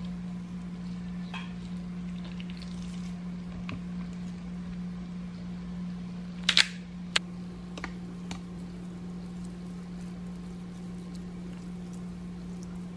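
Pepper grinder grinding in one short burst of crackling clicks about six and a half seconds in, followed by a single sharp click, over a steady low hum.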